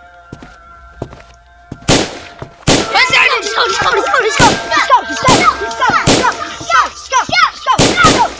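Gunshot sound effects, about ten loud shots at uneven spacing starting about two seconds in, each with a ringing tail, mixed with short sweeping whines or cries between them. Before the shooting, faint music with a steady held tone.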